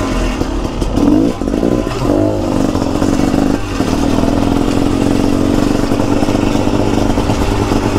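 KTM 300 two-stroke motorcycle engine running while riding, revving up and down briefly about a second in and again around two seconds in, then holding a steady note.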